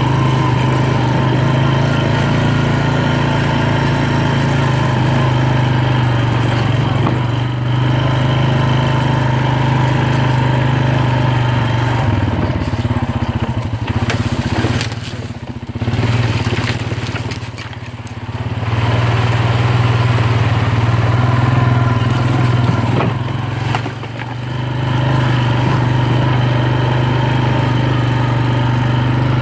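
ATV engine running steadily under way on a trail, easing off a few times around the middle and once more briefly a little later, with tyres crunching over dry leaves and sticks.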